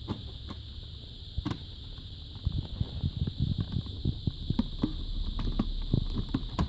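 Hands handling the metal and plastic CD mechanism of a car radio: a run of small clicks and rubbing taps, sparse at first and dense from about halfway through, over a faint steady high tone.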